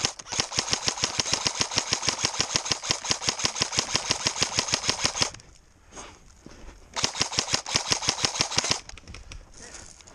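Airsoft rifle firing on full auto: a long burst of rapid, evenly spaced mechanical clacks lasting about five seconds, then a second, shorter burst of about two seconds after a short pause.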